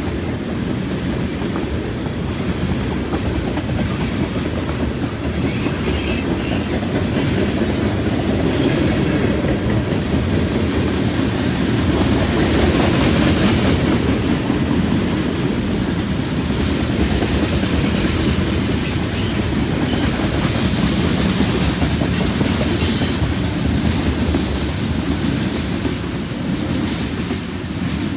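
Freight train's tank cars rolling past: a steady heavy rumble of steel wheels on rail with clickety-clack over the joints and the junction switch. Bursts of sharper, high metallic noise come a few seconds in and again about two-thirds of the way through, and the sound eases off near the end as the last cars move away.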